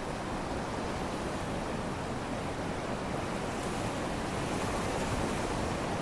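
Ocean surf washing onto a beach: a steady rushing wash of waves that swells a little past the middle.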